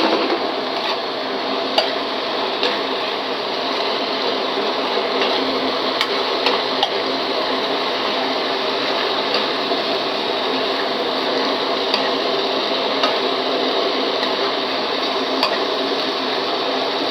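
Pork neck and Thai sweet basil stir-frying in a hot pan: a steady sizzle, with the spatula clinking and scraping against the pan at irregular intervals every second or two.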